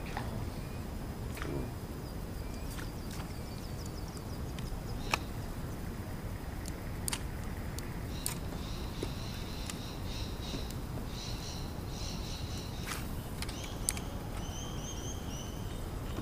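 Birds chirping and trilling over a steady low background rumble, with a few faint sharp clicks. The birdsong starts about halfway through and ends with a quick run of repeated short notes.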